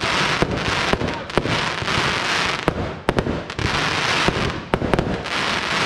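Fireworks display: about eight sharp bangs of shells firing and bursting, over a dense, steady crackle from glittering crackling-star bursts.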